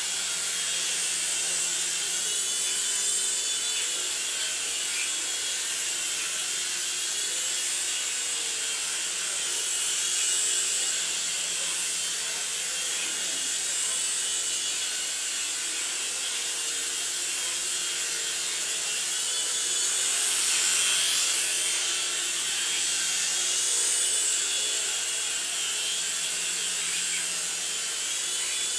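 Small radio-controlled toy helicopter flying: its electric motors and rotors give a steady high whir whose pitch wavers a little as it moves about, getting slightly louder about two-thirds of the way through.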